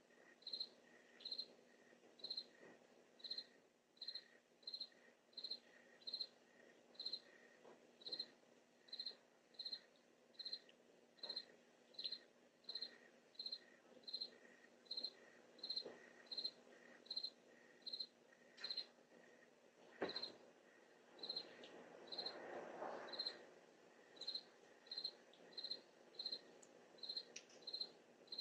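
A cricket chirping steadily, about one and a half short high chirps a second, over a faint low hum. A single sharp click comes about twenty seconds in.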